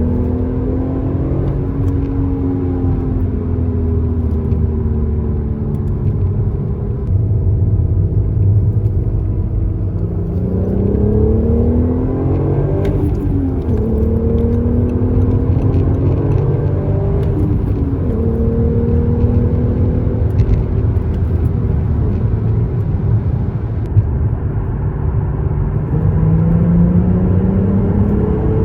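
Audi A3 3.2's VR6 engine and exhaust with the car under way: the engine note climbs and falls repeatedly. About halfway through it climbs steeply and then drops suddenly, like an upshift, and near the end it climbs again.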